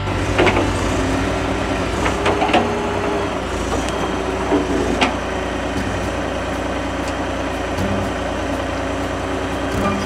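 Wheeled excavator's diesel engine running steadily under work, with a few short knocks and scrapes from the bucket pushing soil.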